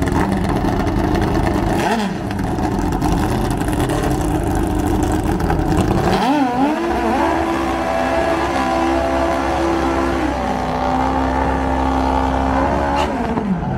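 Drag-racing motorcycle engines running in the staging lanes. About six seconds in, one revs up sharply and holds a steady high pitch, then settles to a lower steady pitch and falls away near the end.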